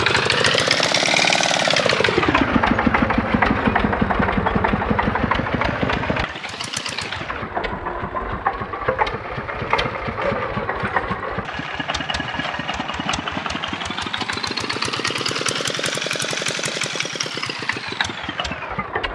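Single-cylinder Kubota RD65 diesel engine of a walk-behind hand tractor chugging steadily as it works a flooded rice paddy. Its pitch rises and falls twice, and it gets somewhat quieter about six seconds in.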